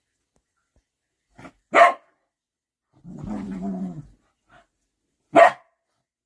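Dog barking twice with a low growl between: a sharp bark about two seconds in, a growl lasting about a second, then another single bark near the end.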